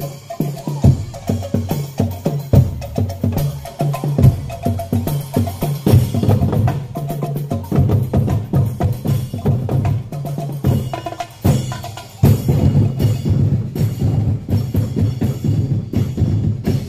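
Drum band playing percussion-led street-dance music: a fast, dense beat on snare and bass drums with cymbal, over low pitched notes.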